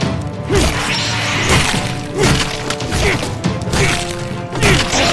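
Tense orchestral film score with repeated crashes and thuds from action sound effects, one roughly every second.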